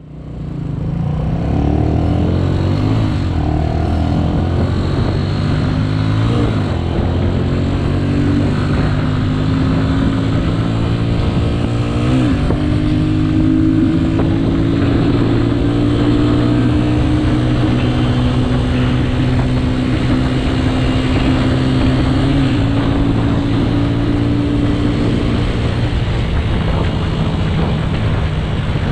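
Motorcycle engine running under way on a highway ride, its pitch rising and dropping several times as the rider accelerates and changes gear.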